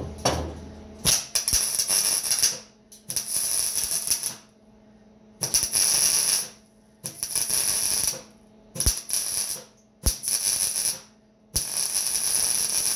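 Flux-core wire-feed welder's arc crackling and sizzling in about seven short bursts, each a second or so long, that start with a sharp click and are separated by brief pauses: short tack welds or short runs.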